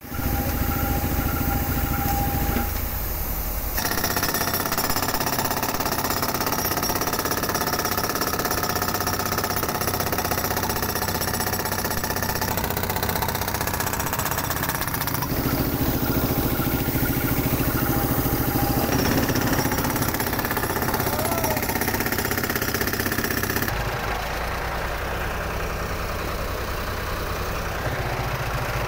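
Compressed-air hammer breaking rock, a loud rapid steady hammering, with an engine running underneath. The sound changes character a few times, and in the last few seconds the engine's steady running is the main sound.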